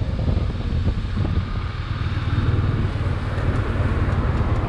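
Bajaj Dominar 400's single-cylinder engine running while the bike is ridden and slows down, with wind rushing over the microphone.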